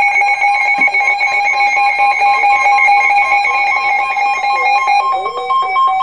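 Several weather alert radios sounding their alert tones together for a snowfall warning: overlapping steady electronic tones at a few pitches, breaking into short pulses near the end.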